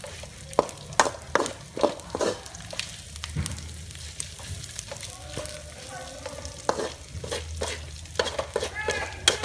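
Long metal spatula scraping and clacking irregularly against a metal wok while stir-frying chicken and lemongrass, over a steady sizzle of hot oil.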